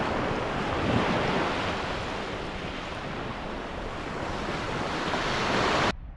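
Small sea waves breaking and washing up a sandy beach, a continuous rushing surf that swells and builds, then cuts off suddenly just before the end.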